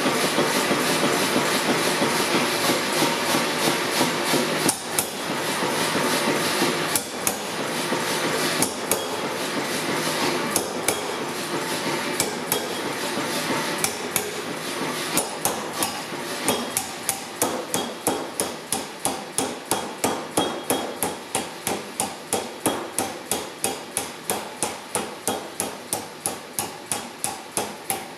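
Blacksmith's hammer striking steel on an anvil in a steady, even rhythm of about two blows a second, over a continuous rushing noise that is loudest in the first half.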